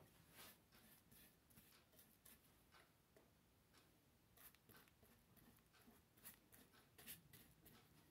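Faint, irregular scratchy strokes of a small paintbrush spreading Mod Podge glue over a painted terracotta pot.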